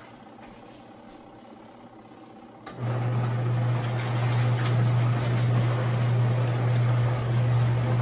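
Twin-tub portable washing machine's wash motor humming steadily with water churning in the tub. The motor is paused at first, then starts again with a click about three seconds in, as the wash cycle agitates the load.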